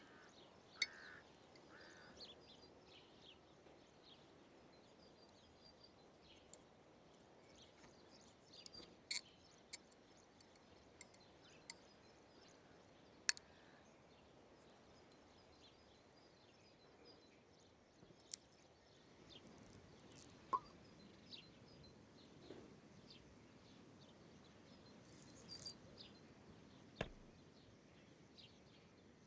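Near silence: faint outdoor ambience with soft bird chirps, broken by a dozen or so sharp, brief small clicks scattered through.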